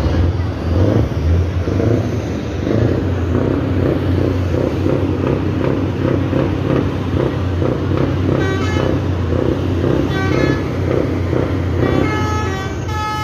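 Show trucks' diesel engines running in a steady low rumble, with bursts of short multi-note truck horn toots twice about two thirds of the way through and again near the end.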